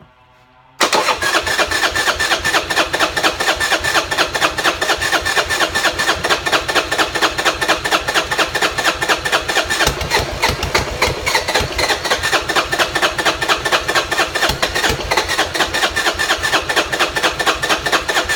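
Electric starter cranking the Buell Blast's single-cylinder engine in a steady rhythmic chug without it catching. The engine won't fire because the auto enricher (choke) isn't working and it has had no starter fluid. The cranking starts about a second in and stops abruptly at the end.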